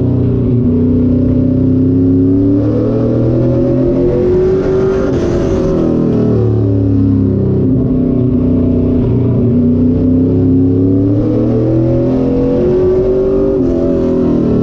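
Late model stock car's V8 engine, heard from inside the cockpit at speed on the track. It revs up in pitch for several seconds, drops off briefly as the driver lifts, then climbs again, twice over.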